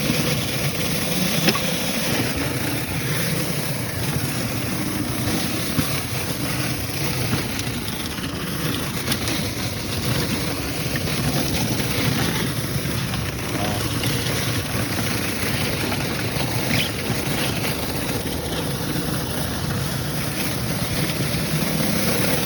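Engine-driven pressure washer running steadily while its water jet sprays at turned-down, low pressure.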